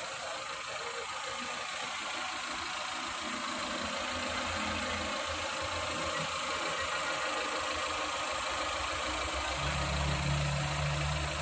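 Maruti Eeco's freshly fitted 1.2-litre four-cylinder petrol engine running at idle, a steady hum under a hiss; it grows a little louder and fuller about nine and a half seconds in.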